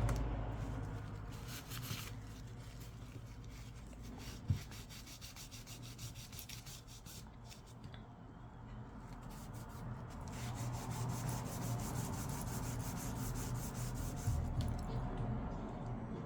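Old adhesive residue being scraped off the edges of an iPad 2 frame: runs of rapid, repeated scraping and rubbing strokes, heaviest in the second half, with one sharp tap about four and a half seconds in.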